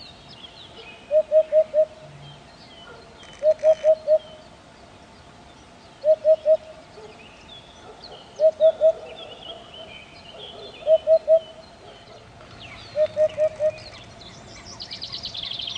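A bird calling short low hoots in quick groups of three or four, the groups repeating about every two and a half seconds, while other small birds chirp faintly in the background. A fast high trill comes in near the end.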